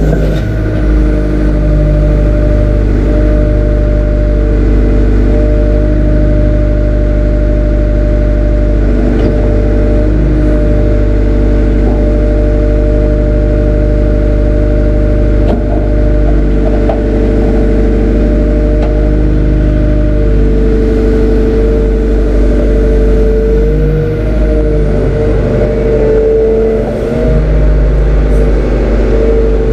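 Heavy diesel machinery running close by with a steady droning note, shifting a little in pitch and level in the second half as the tracked excavator moves and sets its bucket down.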